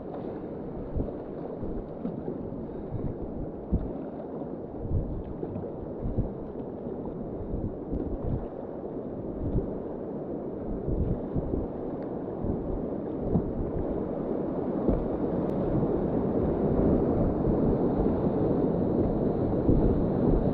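White Salmon River whitewater rushing around a kayak, with irregular low thumps. The rush grows louder through the second half.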